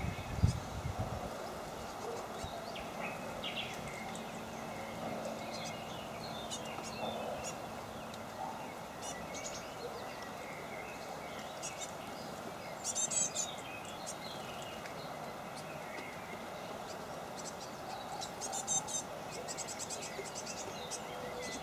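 Small wild birds calling intermittently over a steady outdoor background hiss, with two short bouts of rapid, high-pitched rattling calls, about 13 and 19 seconds in. A couple of low thumps near the start.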